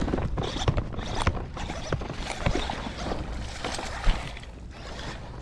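Knocking, rattling and splashing of a hooked bass being reeled in beside a kayak, with handling noise from the rod and baitcasting reel. A sharp knock stands out about four seconds in.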